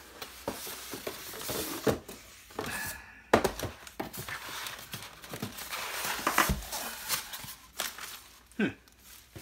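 Unboxing handling noise: a cardboard box and styrofoam insert rustling and knocking as a portable speaker is lifted out by its strap, with one sharp knock about three and a half seconds in. Near the end, a thin plastic wrap crinkles as it is pulled off the speaker.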